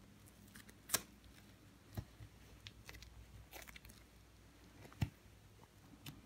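Adhesive leather-look patch strips being pressed and smoothed onto a sofa armrest by hand: faint handling rustle with three sharp clicks or crackles, about one, two and five seconds in.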